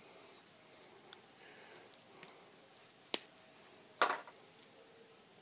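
Small plastic clicks of action-figure parts being handled as open hands are popped onto an S.H.Figuarts figure's wrist pegs: a few faint ticks, a sharp click about three seconds in, and a louder clack about four seconds in.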